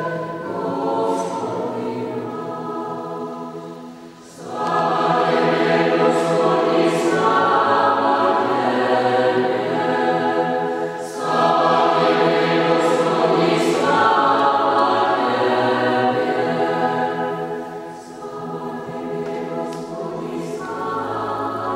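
Church choir singing in long, sustained phrases. It starts softly, swells louder about four seconds in, breaks briefly near eleven seconds, then softens again near the end.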